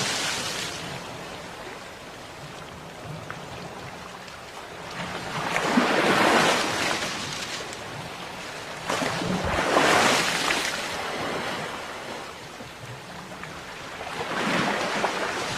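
Sea waves breaking on a shore, each one swelling into a loud rush and washing back, about every four seconds.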